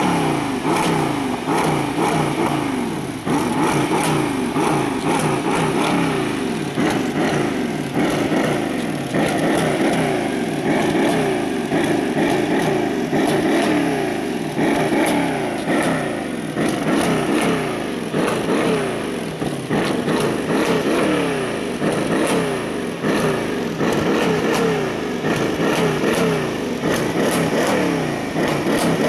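Mercedes-Benz CLS 63 AMG's stock 5.5-litre twin-turbo V8 and exhaust revved over and over while standing still, the pitch climbing and falling back with each blip of the throttle.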